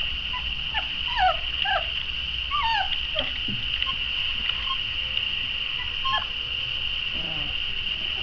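Young puppies whimpering and squealing: a quick run of short, high, downward squeaks in the first three seconds, then one more near six seconds. A steady high-pitched whine runs underneath.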